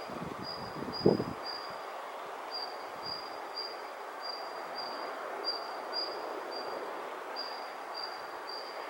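An insect chirping steadily and high, about two chirps a second, over a steady background rush. Wind buffets the microphone with a few low thumps in the first second and a half.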